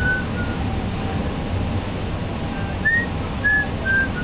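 Cabin noise inside an Airbus A380 on its takeoff roll: a steady low rumble. Several short high-pitched chirps sound over it, a few at the start and a cluster about three seconds in.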